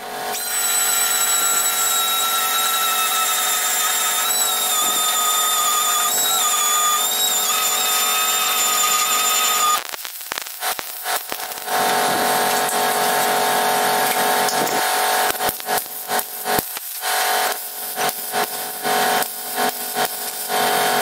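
Metal repair on the steel body shell of a Holden Commodore. For about ten seconds a power tool runs with a steady high-pitched whine that dips in pitch a few times under load. After that a MIG welder crackles in many short, irregular bursts while panels are tacked and stitch-welded.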